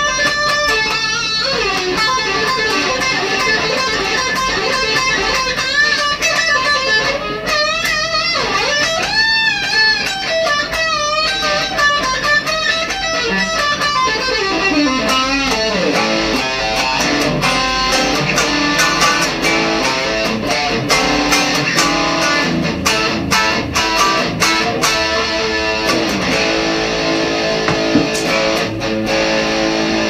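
Gibson '57 Les Paul Junior historic reissue with a single P-90 pickup, played with overdrive through a Marshall DSL1 amp. The first half is single-note lead phrases with wide string bends and vibrato. From about halfway in it moves to rhythmic chord playing.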